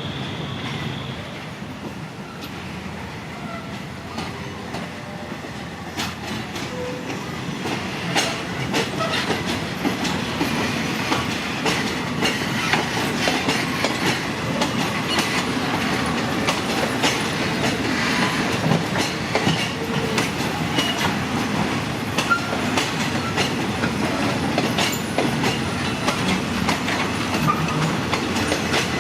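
A train rolling slowly past, wheels clacking over rail joints. The clacking grows louder about seven or eight seconds in and goes on steadily after that.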